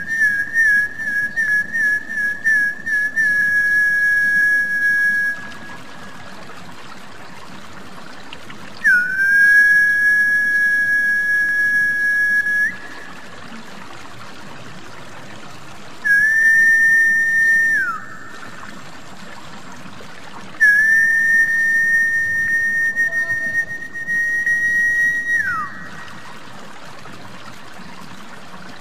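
A lure call for snakehead fish (gabus), whistled in four phrases at nearly one pitch. The first phrase warbles and then holds, and the last two each end in a quick downward slide. A steady trickle of water runs underneath.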